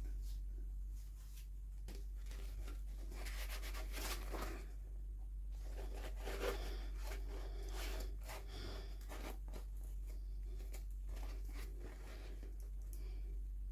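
Toy packaging being torn open and handled: scratchy tearing and rubbing in two longer bursts, about three and six seconds in, among light clicks, over a steady low hum.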